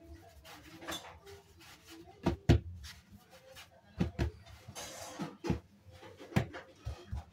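Hands working bread-roll dough on a floured wooden tabletop: several irregular dull thumps and knocks as the dough is pressed, rolled and set down, the loudest about two and a half seconds in.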